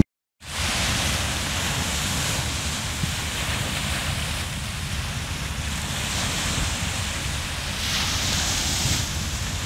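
Small waves washing onto a sandy beach, with wind rumbling on the microphone. The sound cuts out for a moment at the very start, and a brighter hiss of breaking surf swells near the end.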